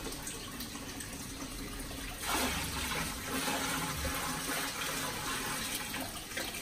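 Water poured from a plastic bucket splashing into an aquarium as it is topped up. The pour grows louder about two seconds in and eases off near the end.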